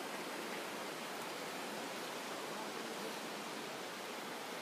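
Steady, even rushing of flowing hill-river water.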